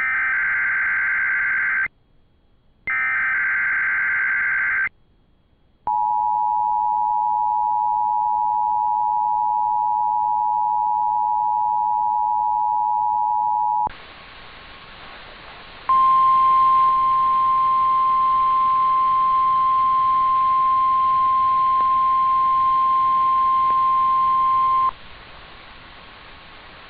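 Emergency Alert System relay: two SAME header data bursts of warbling digital tones, about two seconds each with a second's gap, then the steady two-tone EAS attention signal for about eight seconds. After a couple of seconds of radio hiss comes the single steady NOAA Weather Radio warning alarm tone for about nine seconds, sounding for a weekly test, then hiss again.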